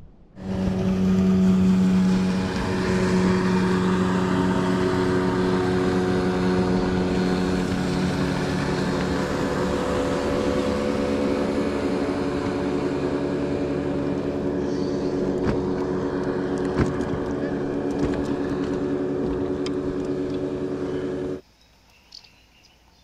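An engine running steadily at a fairly even pitch, starting abruptly and cutting off just as abruptly about twenty seconds later, with a couple of sharp clicks in the second half.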